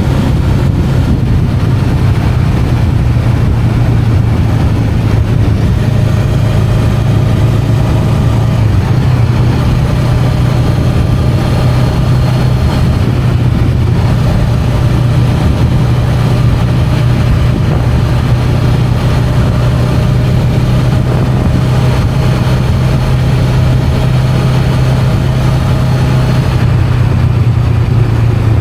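Honda Rebel 500's parallel-twin engine running at a steady cruise, heard from the rider's position. The engine note holds fairly even, with only small shifts in pitch.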